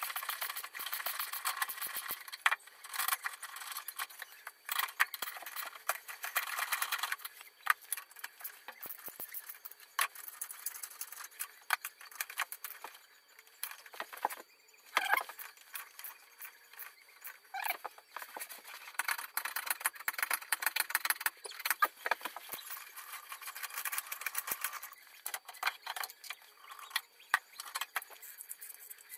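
Hand ratchet wrench clicking rapidly in spells, with metal tool clinks and rattles, as the bolts of a car's left engine mount are worked loose.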